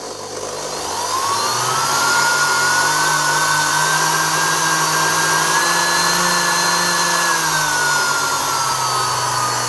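Repaired Sherline 5000 mill DC motor running. Its whine climbs in pitch over the first two seconds as the speed control is turned up, holds, then eases down a little near the end. It runs smoothly with no play in the armature shaft on its newly fitted oilite bushing, judged to have absolutely nothing wrong with it.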